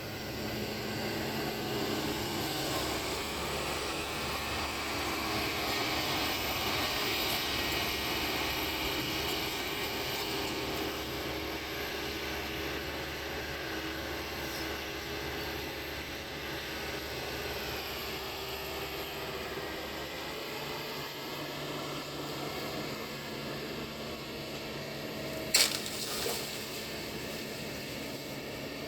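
Kobelco excavator's diesel engine running steadily under work, a little louder in the first several seconds. A single sharp clank stands out near the end.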